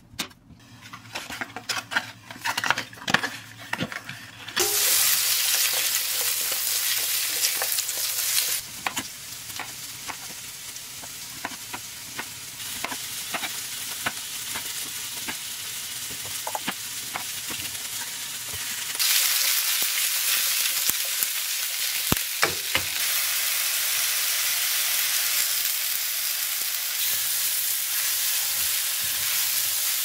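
A knife chopping carrots on a plastic cutting board, sharp separate chops for the first few seconds. Then carrots, zucchini and mushrooms sizzle in butter in a frying pan, a steady hiss with now and then a knock or scrape of the spatula; the sizzle drops quieter for a stretch in the middle and rises again.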